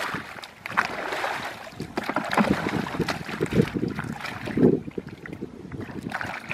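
Muddy water sloshing and splashing as a plastic bucket is dipped into a shallow pool and its water tipped out, in repeated scoops about once a second: a pool being bailed out by hand to catch the fish in it.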